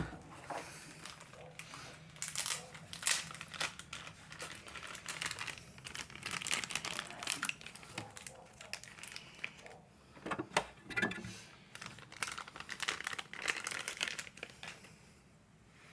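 Plastic packaging crinkling and rustling as a toy's parts are handled, with scattered sharp clicks of plastic pieces. It dies down shortly before the end.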